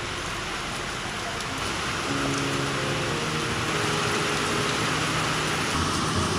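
Steady rain-like hiss with soft background music underneath; both grow a little louder about two seconds in.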